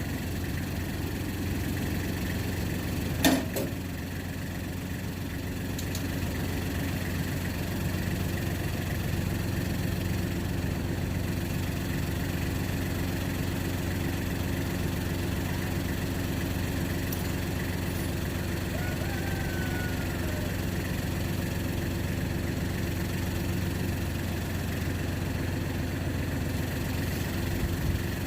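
An engine idling steadily, with a single sharp knock about three seconds in.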